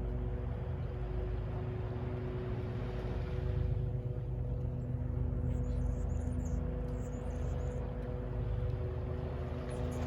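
Distant city traffic rumbling steadily, with a constant low hum running under it. A few short bird chirps come in about halfway through.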